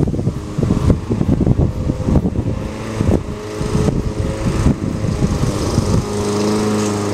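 Lawn mower engine running on E85, with about a third of its carburetor air holes taped over. It runs unevenly with many knocks for about six seconds, then settles into a steady hum near the end.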